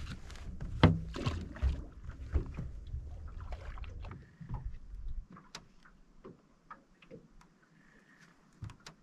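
Water splashing and knocking around a small boat, with the loudest knock about a second in. It settles after about five seconds into quiet with scattered light clicks.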